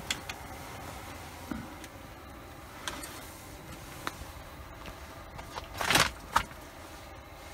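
Handling noises as a freshly caught perch is pulled from the ice hole and unhooked: light clicks and rustling of clothing and line, with a louder rustle about six seconds in, over a steady low hiss.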